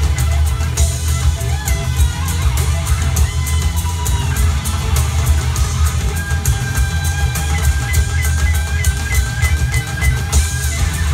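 Music with a steady drum beat, heavy bass and guitar, played back through a McIntosh MA252 hybrid tube integrated amplifier and a floorstanding loudspeaker, heard in the room. A held lead melody comes in about six seconds in.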